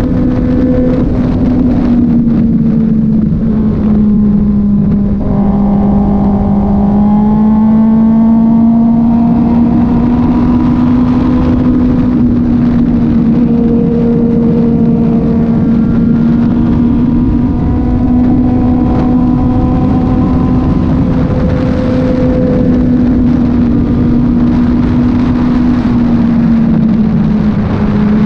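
Kove 450rr's single-cylinder engine running at a steady cruise, its pitch holding nearly level and easing down slightly about four seconds in and again near the end, over a steady rush of road and wind noise.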